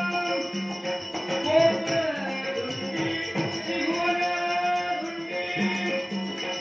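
Live devotional folk-theatre music: a harmonium holding steady reed chords under a man's sung melody, with a drum keeping a regular beat and small hand cymbals jingling in time.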